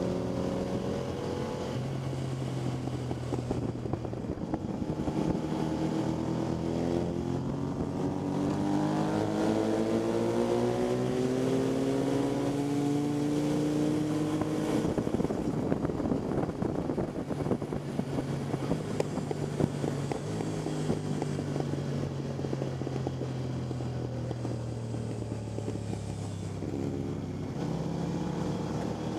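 Motorcycle engine at speed on a race track, heard from an onboard camera with wind rush: the engine note climbs in pitch in steps through the gears for the first half, then holds steady and slowly falls, and picks up again near the end.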